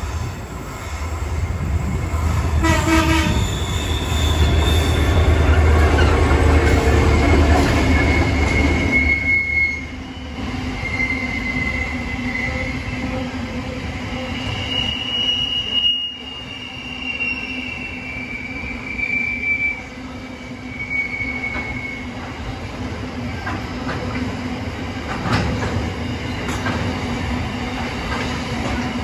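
Two diesel locomotives pass with a heavy low engine rumble for the first ten seconds or so. Empty container flat wagons then roll by on a curve, their wheels giving long high-pitched flange squeals over a steady rolling rumble with some clicking over the rail joints.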